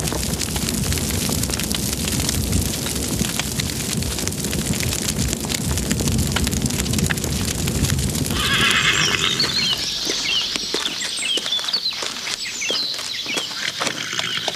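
A fire burning with a low roar and crackle. About eight seconds in, a horse whinnies, followed by the clip-clop of hooves.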